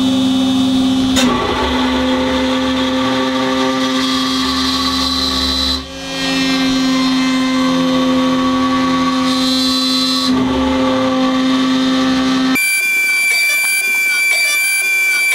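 Shapeoko 3 CNC router spinning at its lowest speed setting while its end mill cuts a shallow slot in mild steel, 0.005 in per pass: a steady hum with a scraping cutting noise over it, changing abruptly a few times. In the last few seconds only a steady high whine is left.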